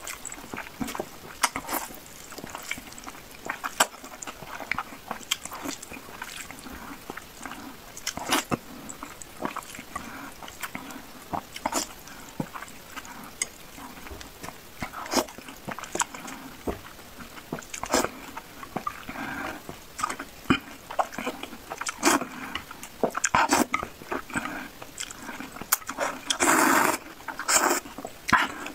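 Close-up eating sounds of a person slurping and chewing cellophane (glass) noodles in soup: irregular wet smacks and clicks, with a louder, longer slurping burst near the end.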